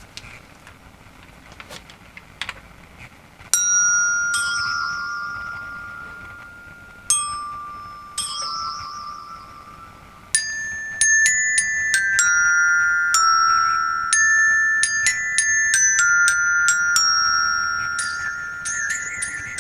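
Bell-like tuned metal notes, like a glockenspiel. A single ringing note comes about three and a half seconds in and another about seven seconds in. From about ten seconds a slow, eerie tune follows, about two notes a second, each note ringing on.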